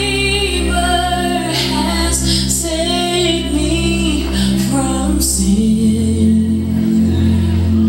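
Recorded gospel song: a woman singing over sustained backing chords. About five seconds in, the voice drops away and the low chords carry on.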